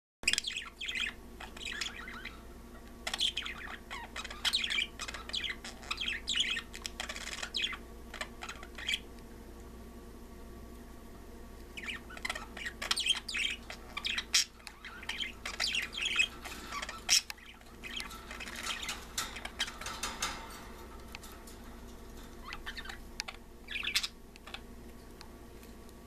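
Budgies chirping and chattering in runs of short, quick, scratchy calls, with a lull of a few seconds about a third of the way through and a last brief burst near the end.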